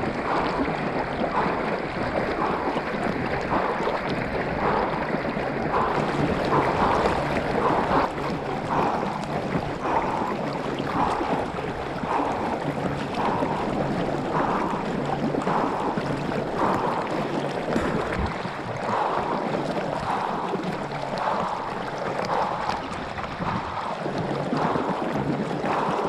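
River water sloshing and rushing at a camera held at the surface on a whitewater-swimming board, with a rhythmic slap of water about once or twice a second as the board moves through the current.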